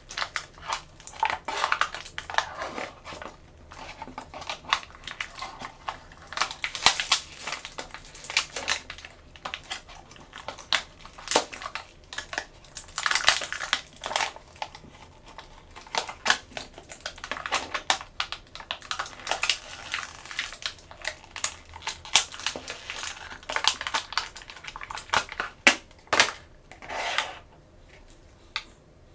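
Plastic toy packaging being handled and opened by hand: irregular crinkling and crackling with sharp clicks of small plastic pieces. The sound thins out near the end.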